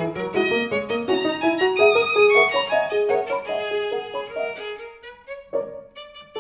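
Violin playing a fast melodic run over a jazz accompaniment, with short plucked bass notes as the line thins out in the last second or two.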